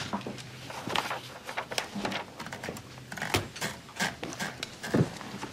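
Irregular clicks and clacks of a manual typewriter as a sheet of paper is wound in around the platen, with a couple of heavier knocks.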